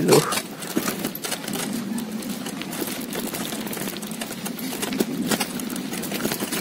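Bicycle being ridden: a steady low rumble with a rapid, light mechanical clicking from the chain and wheels.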